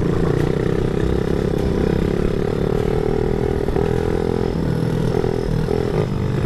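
Small 50 cc minitrail dirt bike engine running steadily while riding, at a fairly even speed.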